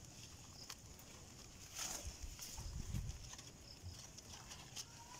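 Rabbits feeding on fresh leaves in a wire cage: faint rustling of the leaves with scattered small clicks and crunches from chewing and paws on the wire mesh.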